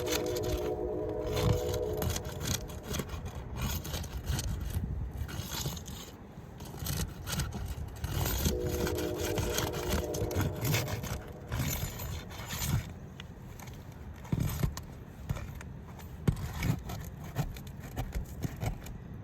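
Asphalt roof shingle tabs being pried loose from their sealant strips: repeated irregular scraping, rubbing and sharp snaps as the tool works under the shingles. A steady droning tone comes in briefly at the start and again about eight seconds in.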